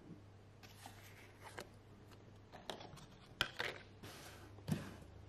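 Small handling sounds: a metal spoon scraping and clinking in a ceramic mug of yogurt, then hands pressing a plastic lid down onto a yogurt tub. There is a scatter of sharp clicks and short scrapes, the loudest a little past three seconds in.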